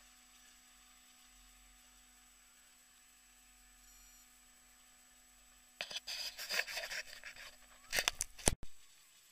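A faint steady hum, then about six seconds in a short spell of rustling and scraping close to the microphone, followed by a few sharp knocks.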